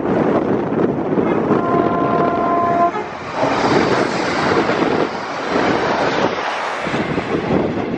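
Wind on the microphone and a train horn sounding steadily for about a second and a half. About three seconds in, a passenger train runs past close by with a loud rushing rail noise.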